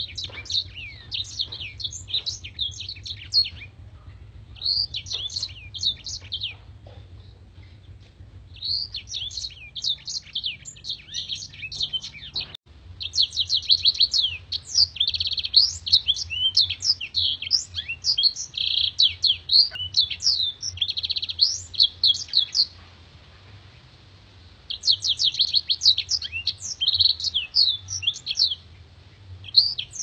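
Caged black-throated canary (blackthroat) singing rapid, high twittering song in long bursts separated by short pauses. A faint steady low hum runs underneath.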